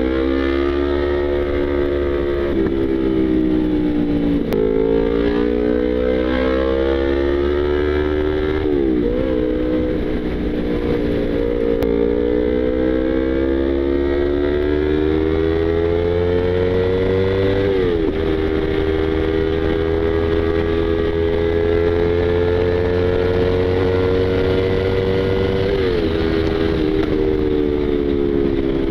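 Yamaha YZF-R25 parallel-twin engine under way. Its note climbs slowly through each gear and drops sharply at each upshift, about four times.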